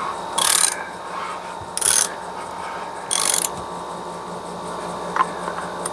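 A hand ratchet clicking in three short strokes about a second and a half apart, then a couple of light clicks near the end.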